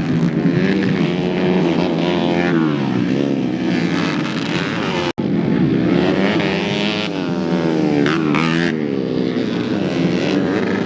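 Minimoto with a modified underbone-moped engine revving, its pitch rising and falling again and again. The sound cuts out for an instant about five seconds in.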